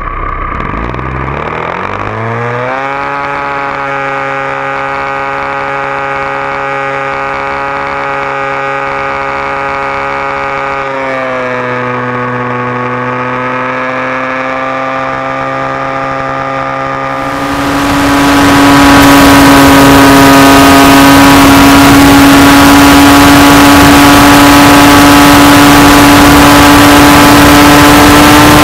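The O.S. engine of a radio-controlled model airplane throttles up in a rising whine for takeoff, then runs steadily at high revs, dipping slightly in pitch about eleven seconds in. Over the last third the engine is much louder and steadier, with a heavy rushing hiss of propeller wash on a microphone mounted on the cowl just behind the propeller.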